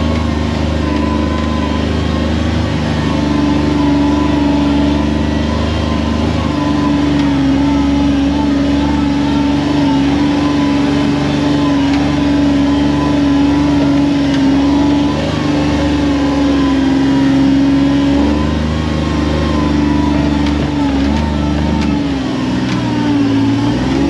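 Kawasaki Mule Pro FXR side-by-side's three-cylinder engine running steadily as the machine drives along, its note holding mostly even, with small dips and rises in pitch near the end.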